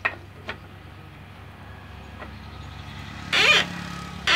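Two loud, short metal squeaks near the end as the handle at the vertical band saw's upper wheel is worked, over a steady low hum, with a few faint clicks near the start.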